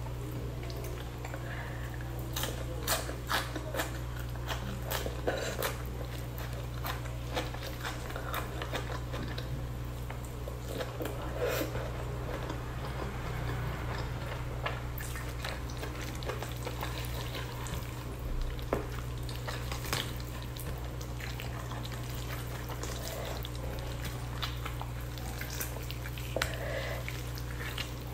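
Close-miked eating of spicy chicken by hand: chewing and wet mouth sounds, with many short sharp clicks scattered throughout, over a steady low hum.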